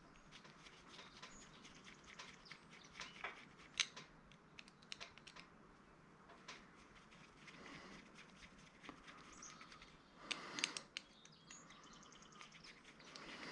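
Faint scattered clicks and light handling noises of small scanner parts being pulled apart and sorted, with a brief scraping rustle about ten seconds in.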